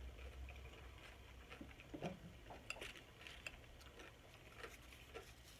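Faint eating sounds: chewing with scattered light clicks of a metal fork in a glass bowl.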